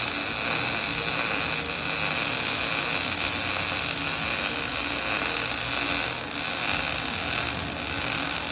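Wire-feed (MIG) welder arc running steadily while a bead is laid in small stitches the welder calls "little seeds".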